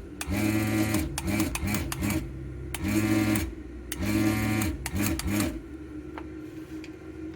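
Vacuum pump of a desoldering station switching on and off as the trigger is pulled, each burst a motor hum that spins up at the start. There are three longer pulls and several quick taps, then a fainter steady hum from about five and a half seconds in.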